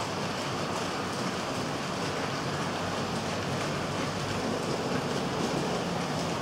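Four-axle model tank wagons rolling past close by on model railway track: a steady rattling hiss of small wheels on the rails, with faint clicks from the rail joints.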